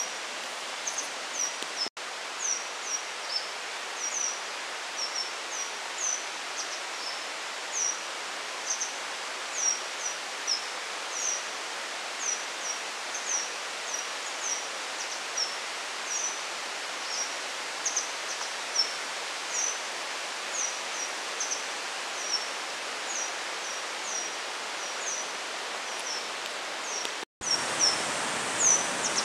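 Forest ambience: a steady hiss of outdoor noise with a small bird's high, short, falling chirps repeated about twice a second. There is a brief dropout near the end, after which the background is louder.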